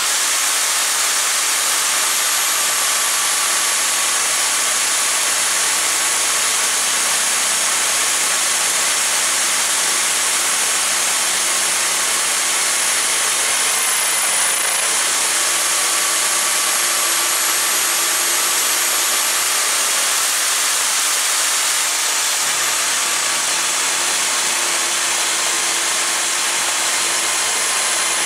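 Power drill's electric motor running steadily at speed, driving an end mill through an ER20 collet chuck toolpost fixture as it mills 316 stainless steel on a lathe. A thin high whine rides over the motor noise and dips briefly about halfway through, as the load changes.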